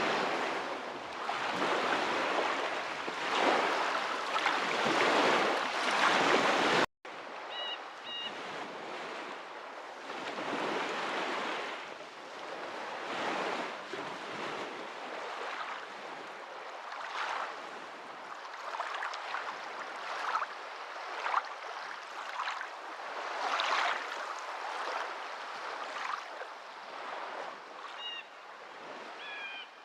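Water rushing in continuous, uneven surges like waves washing ashore. The sound cuts out abruptly for an instant about seven seconds in and resumes a little quieter. Faint high chirps come in briefly about eight seconds in and again near the end.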